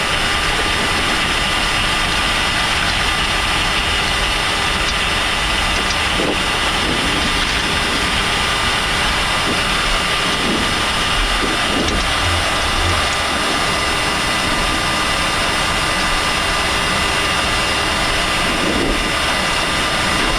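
Steady cockpit noise of a Boeing 747-400 taxiing after landing, with its jet engines at idle: an even rushing hiss with several steady high whine tones. A few faint knocks come through now and then.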